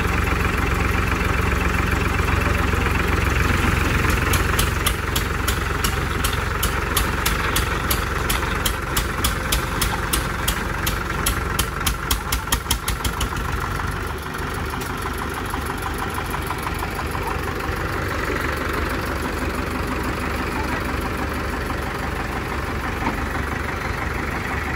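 Diesel tractor engines running under load, two tractors chained together in a tug-of-war. From about four seconds in a rhythmic pulsing knock sets in and quickens, then stops about fourteen seconds in, and the engines settle to a slightly quieter steady run.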